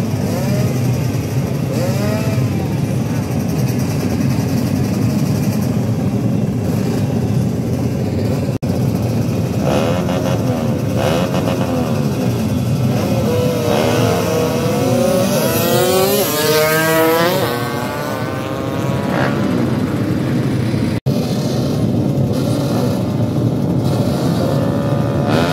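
Drag-race motorcycle engines running and revving at the start area, a steady loud drone throughout. About halfway in, an engine revs up in a steep rising climb that falls away a couple of seconds later.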